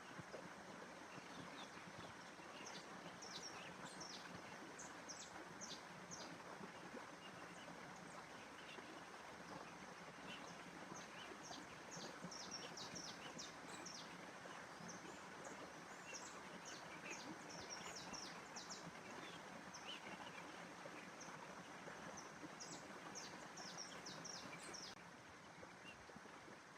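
Faint nature ambience: small birds chirping in quick, short, high notes over a steady rushing background noise. The chirping stops near the end.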